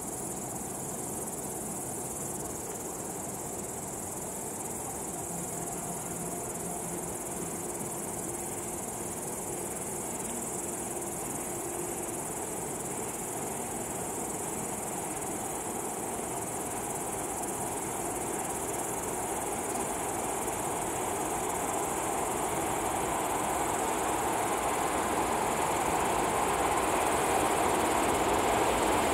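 Crickets chirping steadily, with the rumble of an approaching electric train growing steadily louder over the last third.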